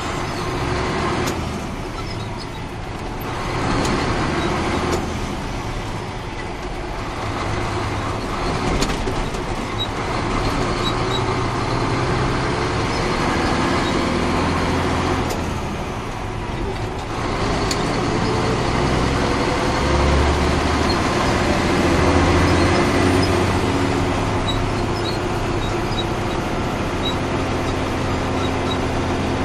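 Caterpillar 3406 inline-six diesel of a 1994 Ford L9000 truck pulling the truck along the road, with road noise. The engine note rises steadily in pitch through the middle, and the sound drops off briefly twice, about two seconds in and again near the middle.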